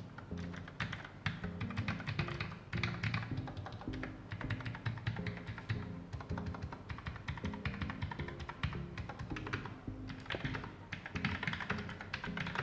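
Typing on the Armaggeddon SMK-6C mechanical keyboard's low-profile clicky switches, a quick, uneven run of key clicks, with background music underneath.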